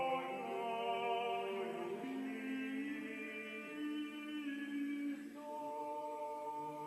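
Slow a cappella choral chant: several voices holding long sustained chords, moving to a new chord about two seconds in and again a little past the five-second mark.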